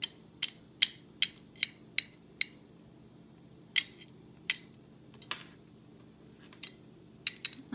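A small magnet clicking against the metal chain and findings of a beaded pendant as it is tested for magnetic metal. There are about a dozen sharp metallic clicks: a quick run of about seven at roughly two a second, then a few scattered ones.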